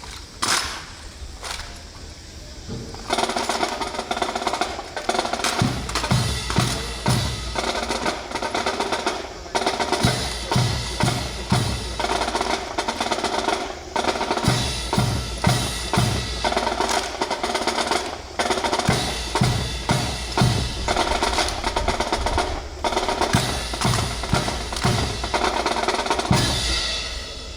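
Drum-led music with snare-drum rolls and a steady, regular beat, accompanying a rifle drill routine.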